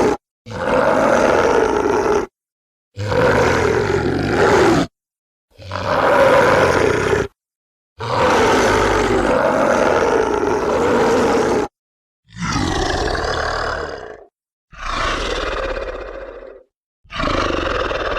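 A series of dinosaur roar sound effects played back to back: about seven rough roars of around two seconds each, one in the middle lasting nearly four seconds, with brief dead silence between them. The last three have a more clearly pitched, falling tone.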